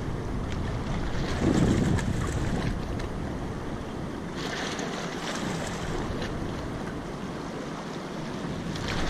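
Wind buffeting the microphone in gusts, strongest about two seconds in, over the steady rush of the river's current below the dam.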